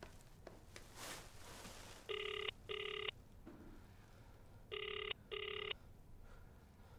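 Electronic telephone ringing in a double-ring pattern: two short rings, a pause of about two seconds, then two more.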